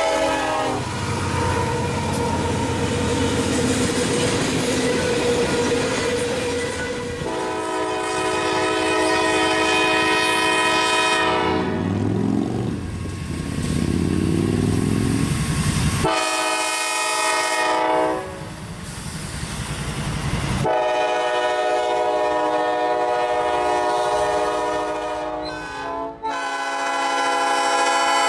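Passing diesel freight trains: locomotive air horns sound in several long blasts, the first about seven seconds in and more through the second half, between stretches of engine rumble and wheels on rail.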